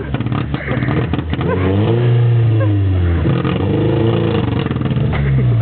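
Suzuki Vitara engine revving up and falling back twice, with sharp pops and crackles in the first second or so. It is running rough and misfiring because its fuel injection got wet.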